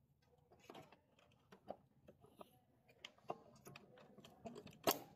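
Faint, scattered clicks and taps of plastic printer parts handled by hand: the drive gear, paper-feed roller assembly and a wire being fitted inside an Epson L3110 inkjet printer. There is a slightly louder cluster of clicks about five seconds in.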